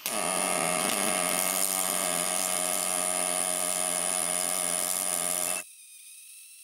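Pulsed MIG/MAG welding arc from an EWM Picomig 225, 1 mm steel wire under 82/18 argon-CO2 gas, buzzing steadily as it lays a weld on 2 mm steel sheet. It cuts off abruptly a little past halfway, after which only a faint steady tone remains.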